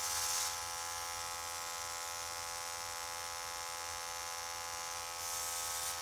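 Small airbrush compressor running with a steady buzz, and the airbrush hissing briefly at the start and again near the end as air and paint are sprayed.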